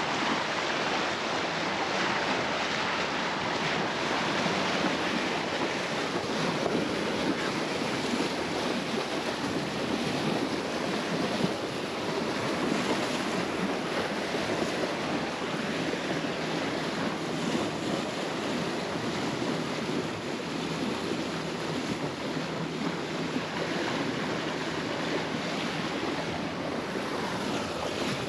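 Water rushing along a sailboat's hull under way, with wind buffeting the microphone and a low steady hum beneath from the boat's engine while motor sailing.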